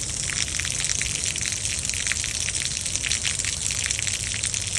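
Heavy thunderstorm rain pouring down steadily, a dense patter of drops over a constant rushing wash.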